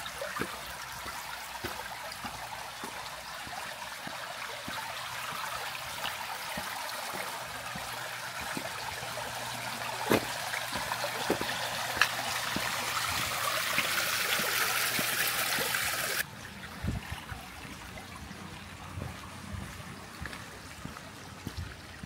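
Water trickling and running along a small stone-lined roadside channel, a steady rush that builds a little, then cuts off suddenly about 16 seconds in, leaving a fainter background with scattered light ticks.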